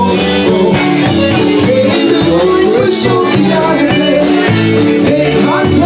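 Live band music with a steady beat and a bass line, with a man singing at the microphone.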